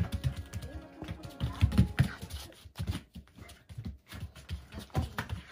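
A Shiba Inu shaking and tossing a plush toy, its paws and the toy making quick, irregular thumps and taps on foam floor mats. Music plays underneath.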